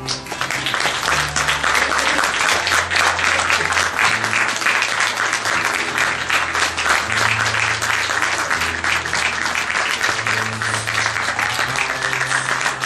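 Audience applauding a curtain call, the clapping breaking out all at once at the blackout and carrying on thickly throughout, with music's low notes playing underneath.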